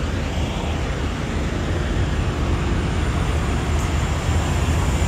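Steady low rumble of idling diesel semi-trucks, growing slightly louder.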